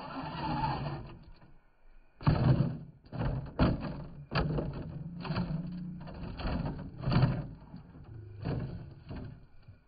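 RC rock crawler tumbling down a pile of broken concrete, giving a series of knocks and clatters as it rolls over and lands on the rubble.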